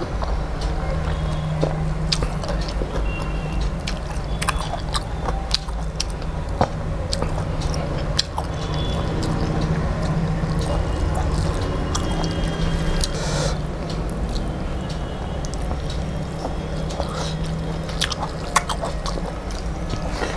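Close-miked eating by hand: fingers mixing rice on a steel plate, chewing, and many short wet mouth clicks and smacks, over a steady low hum.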